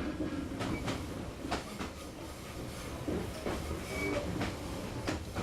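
Passenger train running along the track: a steady low rumble with irregular sharp clacks and knocks from the wheels and carriage, several in a few seconds.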